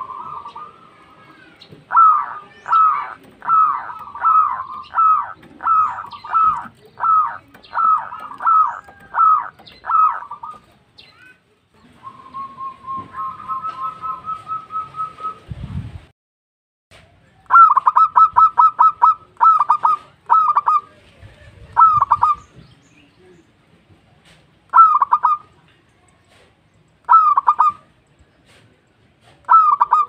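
Zebra dove (perkutut) calling: quick runs of short, clear cooing notes, a steady trill in the middle, then single notes a couple of seconds apart near the end. A brief low thump sounds just past the middle.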